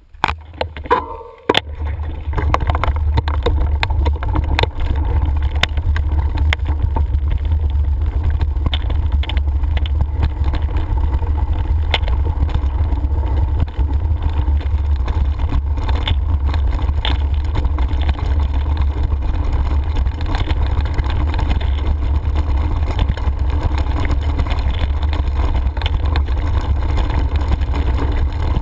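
Mountain bike riding over a loose gravel trail, heard on the bike-mounted action camera: a loud, steady low rumble of wind and vibration on the microphone, with frequent clicks and rattles of the bike over stones. The steady rumble sets in about two seconds in.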